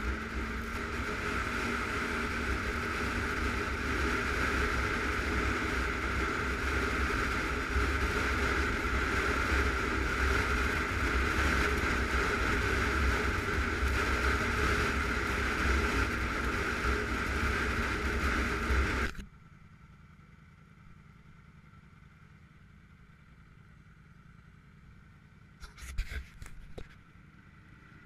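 ATV engine running at a steady speed while riding on gravel, with wind noise. It cuts off suddenly about two-thirds of the way through, leaving a quiet low hum with a few short knocks near the end.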